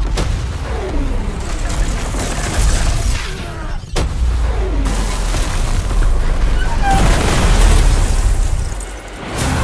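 Film explosion sound effects: a deep rumbling blast with falling whooshes, then a fresh sharp blast about four seconds in that rumbles on.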